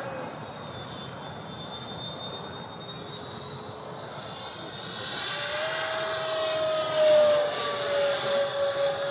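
Electric ducted fans of a Freewing MiG-29 RC jet whining in flight. About five seconds in the pitch rises and the sound grows louder, then the pitch sinks slowly as the jet flies on.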